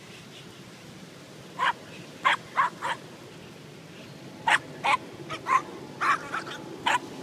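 A dog barking in short yaps while playing: four quick barks between about one and a half and three seconds in, then seven more from about four and a half seconds on.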